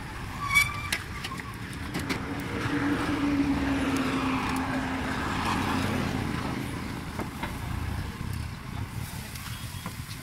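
A motor vehicle passing on the street, its engine note swelling over a few seconds and then fading, over general street noise. A brief high chirp sounds about half a second in.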